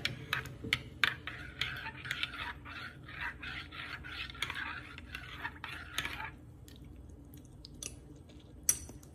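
Metal spoon stirring coffee in a ceramic mug: a liquid swish with light clinks of the spoon against the sides. The stirring stops about six seconds in, followed by a couple of faint clicks.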